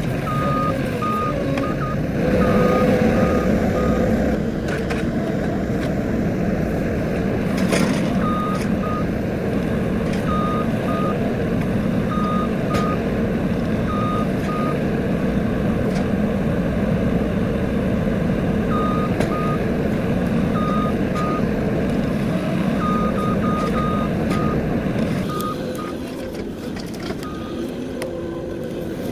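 Skid steer loader's engine running steadily while working, with its reversing alarm beeping in short runs each time the machine backs up. The engine sound drops lower a few seconds before the end.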